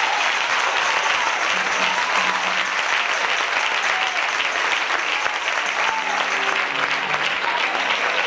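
Church congregation clapping and applauding steadily, with a few held low instrument notes a couple of seconds in and again near the end.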